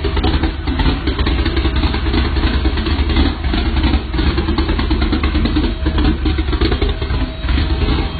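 Loud vehicle engine and exhaust running steadily, without clear revving.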